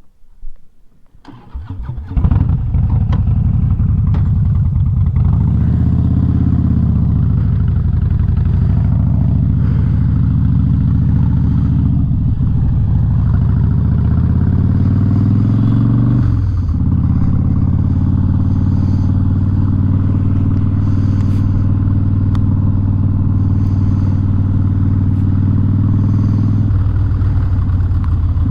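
Harley-Davidson Street Bob V-twin with a loud Vance & Hines aftermarket exhaust starting up about two seconds in, then running loud and steady, its pitch rising and falling a few times as the throttle is worked.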